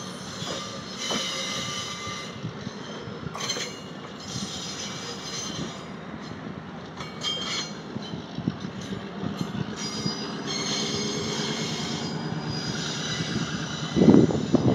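Bi-level passenger coaches rolling away on steel rails, with the wheels squealing in high thin tones on and off and scattered clicks from the wheels on the track. A short, loud, low burst comes near the end.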